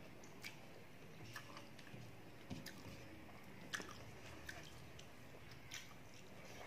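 Faint close-up chewing and wet mouth clicks of a person eating rice and curry with her hand, a few sharp smacks spread through it.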